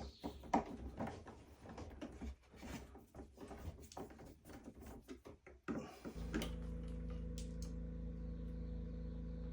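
Irregular light clicks and knocks of handling, then about six seconds in a steady mechanical hum starts suddenly and runs on.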